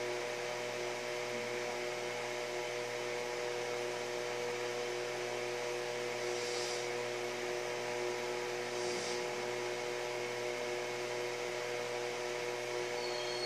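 Steady hum with several fixed tones over an even hiss. Two soft high hisses come about six and nine seconds in.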